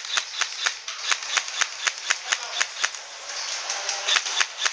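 Airsoft rifle firing rapid semi-automatic shots as sharp clicks, about four a second, for roughly three seconds; after a brief pause a few more shots come near the end.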